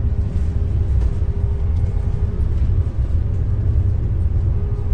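Double-decker bus running along the road, heard from on board: a steady low rumble with a faint steady whine over it.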